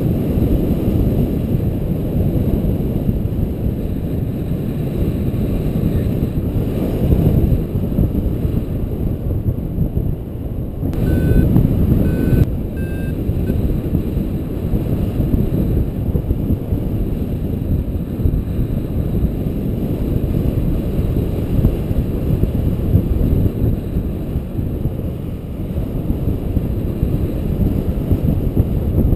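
Wind rushing over the camera microphone of a paraglider in flight, a steady low rumble. About eleven seconds in come three short high beeps, the last a little higher in pitch, from a flight variometer signalling rising air.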